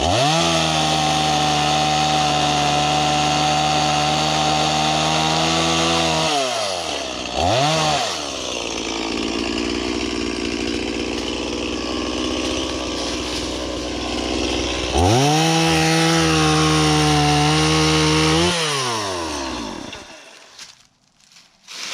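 Gas chainsaw revved to full throttle and held for about six seconds, dropping back to idle with a brief blip, then held at full throttle again for a few seconds before falling off and stopping near the end.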